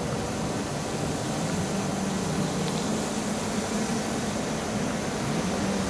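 Hubsan H501M quadcopter's propellers buzzing steadily as it flies a circle around the operator, a low hum that wavers slightly over an even hiss.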